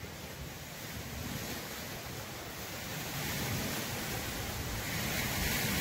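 Steady rushing outdoor wind noise with no distinct events, slowly growing louder.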